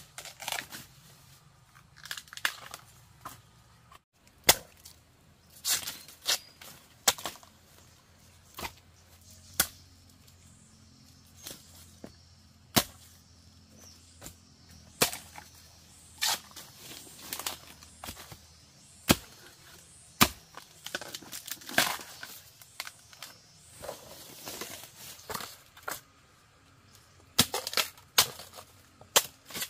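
Sharp knocks and snaps at uneven intervals, often a second or two apart, some in quick clusters.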